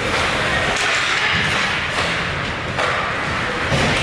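Ice hockey play: a steady hiss of skates on the ice with a few sharp knocks from sticks, puck and boards, about three in four seconds.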